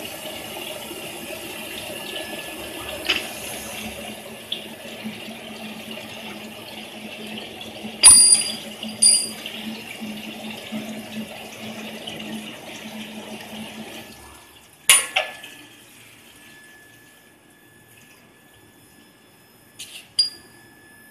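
Induction hardening machine working a small steel shaft: a steady hiss of quench water spraying with a low hum, which stops about two-thirds of the way through. Several sharp metallic clinks sound over it, two of them ringing briefly, and two more after the spray has stopped.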